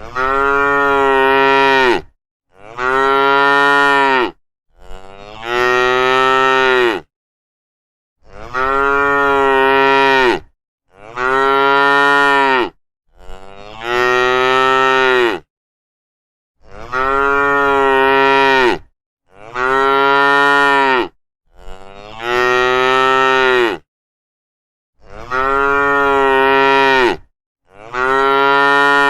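Cattle mooing: long, loud, deep calls of about two seconds each. A set of three calls repeats about every eight seconds, with dead silence between the calls.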